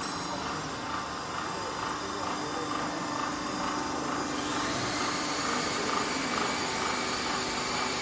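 Hydraulic power unit of a wire-mesh crimping machine running steadily, its electric motor and pump giving a continuous machine hum with a whine. It grows a little louder and brighter about halfway through.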